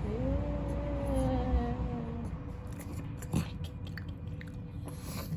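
Pug whining, one drawn-out whine of about two seconds that rises a little and falls away, followed by a few short clicks.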